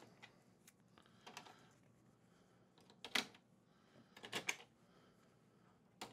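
Small clicks and light handling noise as screws are set into the plastic rear cover of a 1990–96 Corvette instrument cluster. The sharpest click comes about three seconds in, with a few more just after four seconds.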